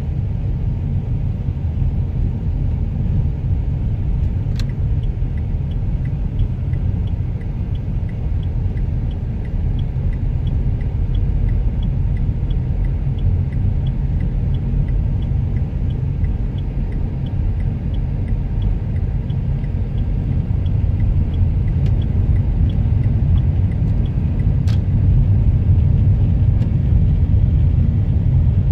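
Steady low rumble of a car driving along the road. A light, regular ticking, a little over two ticks a second, starts about five seconds in and stops about two-thirds of the way through, and there are a few single sharp clicks.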